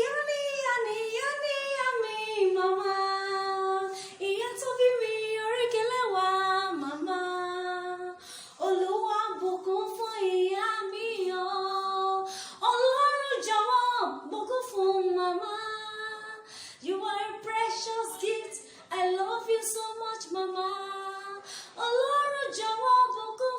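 A single high voice singing a melody unaccompanied, with held notes and short pauses between phrases.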